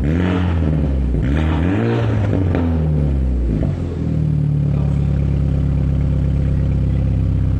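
BMW N20 2.0-litre turbocharged four-cylinder heard through a Fi Exhaust aftermarket valved exhaust, free-revved twice with the revs rising and falling, then settling to a steady note held at one speed.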